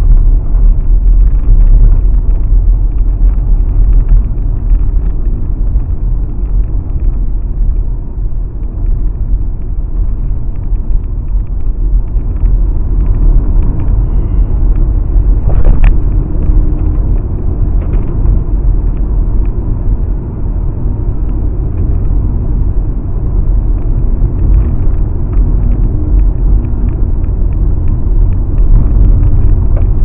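Car driving on a dirt road, heard from inside the cabin: a steady low rumble of tyres and engine, with one sharp knock a little past halfway.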